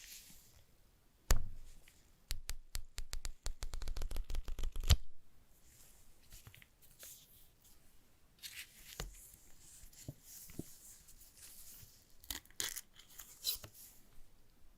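Smartphone box packaging being opened by hand. A sharp snap comes first, then about three seconds of quick, crackling tearing, then intermittent rustling of the packaging near the end.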